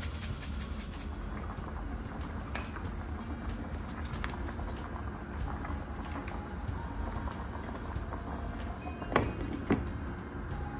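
Water boiling in a frying pan around a whole chicken, a steady bubbling. Near the end a glass pan lid is set down on the pan with two sharp clinks about half a second apart.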